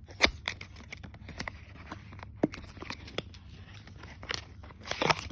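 Apple charger box and its packaging being opened and handled by hand: irregular clicks, scrapes and tearing, with one sharp snap about a quarter second in.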